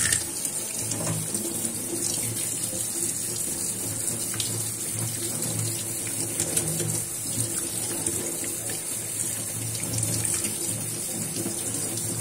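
Tap water running steadily over a piece of raw goat udder held in the hand, splashing into a stainless-steel sink as the meat is rinsed.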